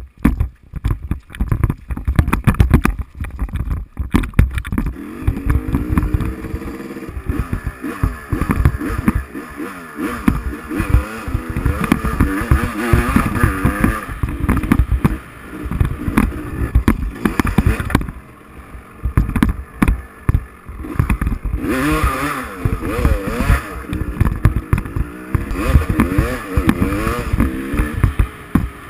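Dirt bike engine revving up and down with the throttle while riding, its pitch rising and falling repeatedly and easing off briefly about two-thirds of the way through. Heavy wind buffets the camera's microphone.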